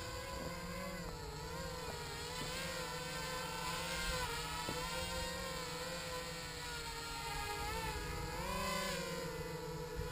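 HK 250 mini quadcopter's electric motors and propellers whining as it hovers, the pitch wavering up and down with the throttle corrections, with a brief rise near the end.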